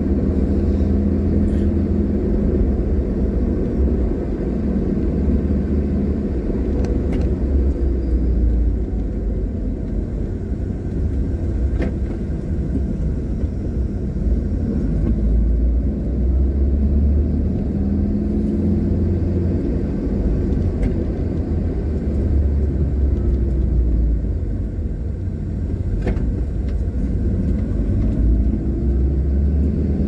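Car engine and tyre rumble heard from inside the cabin while driving, a steady low drone whose engine pitch rises and falls a few times as the car speeds up and slows, with a few faint clicks.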